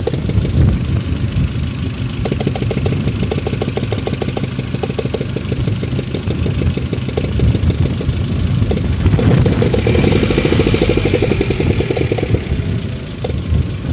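Daewoo Nexia 1.6 sixteen-valve engine running with a fast, even knocking tick from the top of the engine. It gets louder for a few seconds about two-thirds of the way through. The owner suspects something loose under the valve cover striking the camshafts; a fresh oil change has not cured it.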